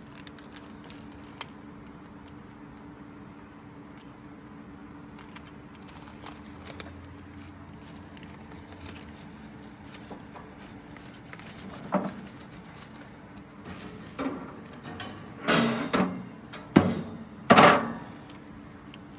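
Small clicks and handling noises at a charcoal grill as it is being lit, over a steady low hum, then several loud, sudden scrapes or knocks in the last few seconds.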